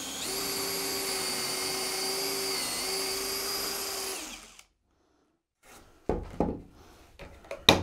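Cordless drill running steadily at high speed, boring a pocket hole through a pocket-hole jig into a wooden board; the pitch dips briefly partway through, and the drill stops after about four and a half seconds. A few light knocks follow as the drill and jig are handled.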